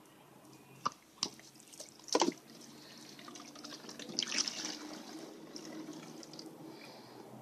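Liquid dripping and splashing: three sharp drops or clicks in the first couple of seconds, then a short splashy trickle about four seconds in.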